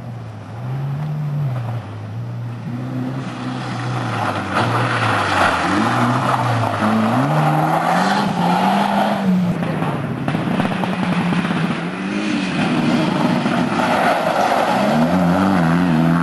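Rally car engine revving hard on a loose-surface stage, its pitch repeatedly climbing and dropping as it runs through the gears. Spray and tyre noise swell as it drives through standing water. Near the end another rally car's engine climbs as it approaches.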